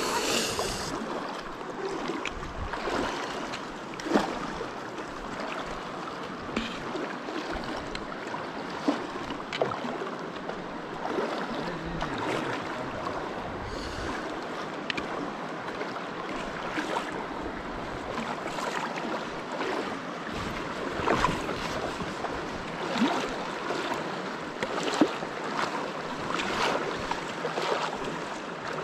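Virgin River water rushing steadily through the canyon, with irregular short splashes of feet wading through it.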